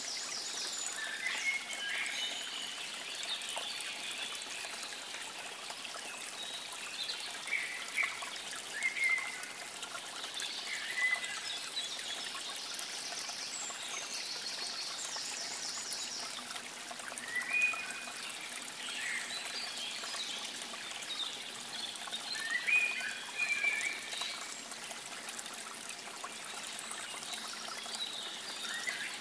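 Trickling water of a small stream running steadily, with birds singing short chirping phrases every few seconds over it.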